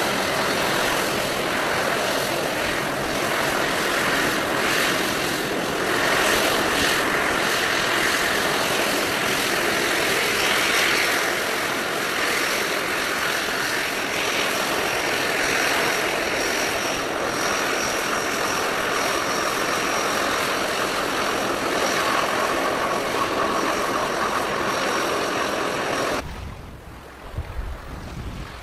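The four Rolls-Royce AE 2100J turboprop engines and propellers of a ShinMaywa US-2 flying boat run steadily as it taxis on the water, with a faint high whine coming and going. About 26 seconds in the sound cuts to a much quieter low rumble of wind on the microphone.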